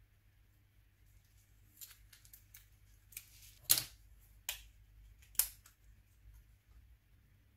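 Handling of a partly disassembled Nokia N93 phone: a scattering of small sharp clicks and taps from plastic and metal parts. The loudest comes nearly four seconds in, just after a short rustle, and two more come about a second apart after it.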